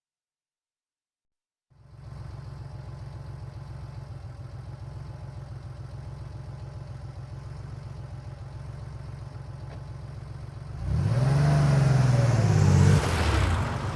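1990 Porsche 911's air-cooled flat-six engine idling steadily, then revved once near the end, the pitch rising and falling back before it settles to idle again.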